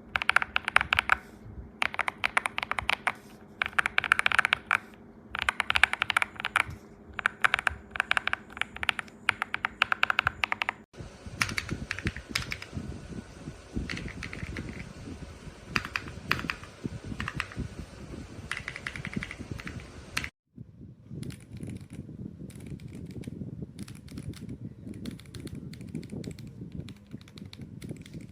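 Typing on a mechanical keyboard fitted with MMD Princess Holy Panda v2 tactile switches: rapid runs of key clicks and clacks. The sound changes abruptly about eleven seconds in and again about twenty seconds in, becoming deeper and more muted in the last part.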